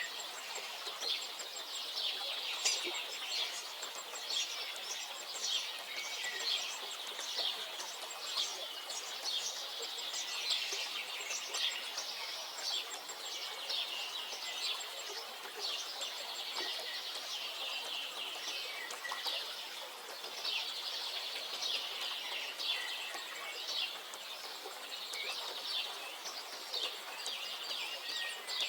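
A chorus of songbirds: many short, high chirps and trills overlapping continuously, over a faint background hiss.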